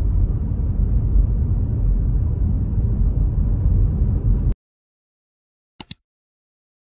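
Steady low rumbling noise that cuts off abruptly about four and a half seconds in, followed by silence broken by two quick clicks.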